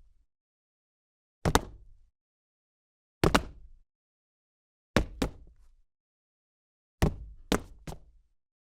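Boot footsteps on cement: hard heel-and-sole scuffs, one step at a time and then in short runs of two and three, with dead silence between each group.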